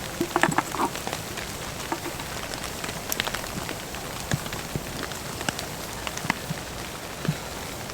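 Steady rain falling, with individual drops striking near the microphone as scattered sharp clicks.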